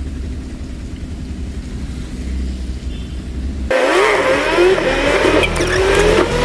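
A vehicle engine gives a steady low rumble. About two-thirds of the way in it cuts abruptly to a louder, busier sound full of rising and falling pitch glides.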